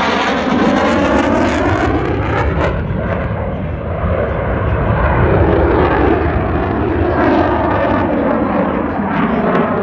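Loud jet noise from a KAI T-50 jet trainer's single turbofan engine flying past, with a falling sweep in pitch in the first couple of seconds and more sweeps later on.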